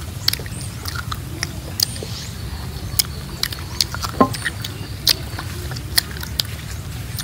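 Bites and chewing of firm, crisp fruit close to the microphone: irregular crisp cracks and crunches, one or two a second, over a steady low rumble, with a brief falling vocal sound about four seconds in.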